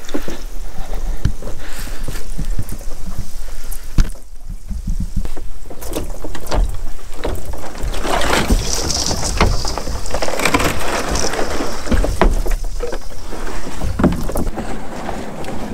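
A canoe being hauled out of the lake onto a wooden dock: the hull knocks and scrapes against the boards, with water splashing and dripping off it.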